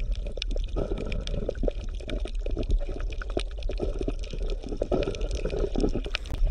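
Water bubbling and gurgling in an irregular patter of small pops over a steady low hum.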